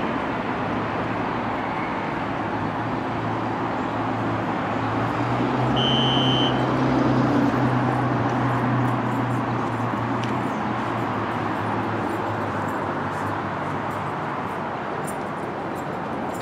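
New York City subway train running through the station, a steady rumble of wheels on rail under a low motor hum that swells for a few seconds in the middle. A single short high beep sounds about six seconds in.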